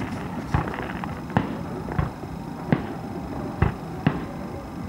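Distant fireworks display: a string of dull thumps from shells being fired and bursting, about seven or eight, irregularly spaced.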